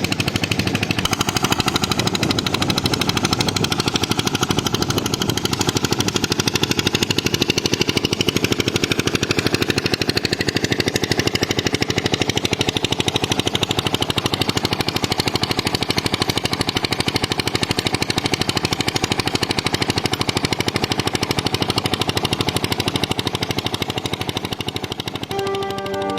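Petter-type diesel engine driving a tube well pump, running steadily with a fast, even exhaust beat.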